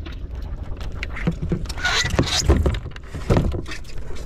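Knocks and clatter of gear and basins being handled on a small wooden fishing boat, over a low steady rumble, with a short hiss about two seconds in.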